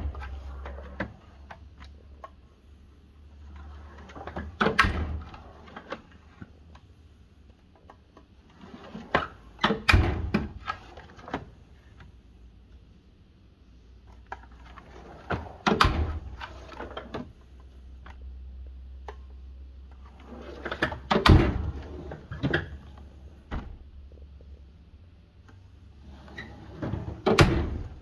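Steel drawers of a US General 72-inch tool chest being rolled open and shut on their slides, each shutting with a knock and the tools inside rattling. This happens six times, about every five to six seconds.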